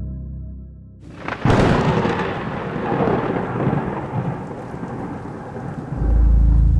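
A thunderclap cracks about a second and a half in and rumbles away under a steady hiss of rain. A deep low drone comes in near the end.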